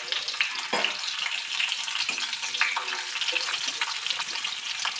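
Garlic cloves and chillies sizzling in hot oil in a kadai, with a spatula stirring and scraping now and then.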